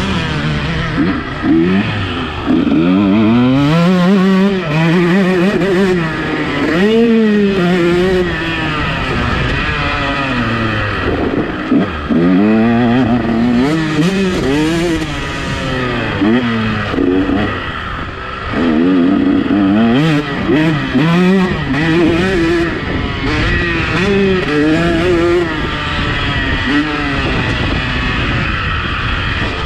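Two-stroke motocross bike's engine heard on board, revving up and dropping off over and over as the throttle is opened and closed.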